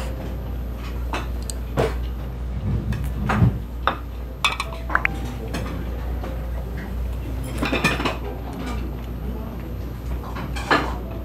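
Small ceramic sushi plates and chopsticks clinking and knocking as the plates are picked up and set down on a wooden counter. The sharp clinks come at irregular moments, a handful in all, over a steady low hum.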